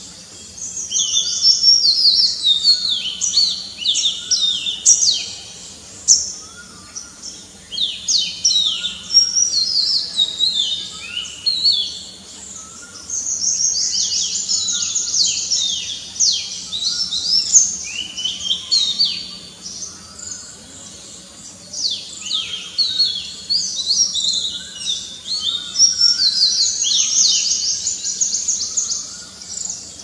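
Male oriental magpie-robin singing: long bouts of rapid, varied whistled notes, many sliding down in pitch, broken by short pauses.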